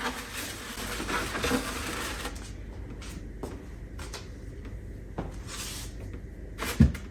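Groceries being put back onto refrigerator shelves: packaging rustling for the first couple of seconds, then scattered light knocks of containers being set down, and one sharper, louder knock near the end.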